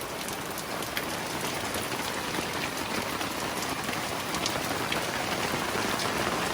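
Heavy rain pouring down, a steady hiss with scattered drop ticks that grows slightly louder.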